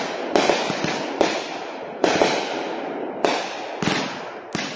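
Consumer-grade aerial fireworks going off: about six sharp bangs, roughly one a second, each trailing off, with smaller pops between them.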